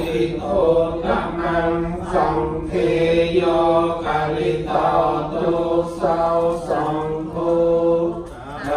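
Buddhist monks chanting Pali verses, a steady low-pitched recitation in an even syllable rhythm, with a brief pause for breath near the end.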